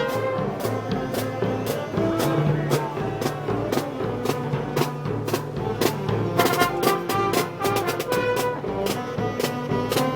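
Festival band music: brass instruments playing over a steady drum beat, the percussion hits coming faster for a moment about six seconds in.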